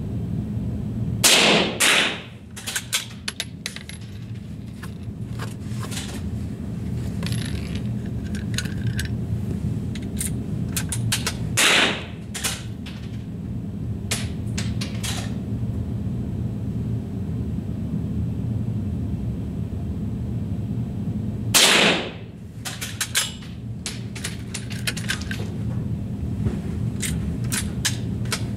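Three rifle shots about ten seconds apart, each a sharp crack with a short echo, followed by scattered lighter clicks. A steady low hum runs underneath.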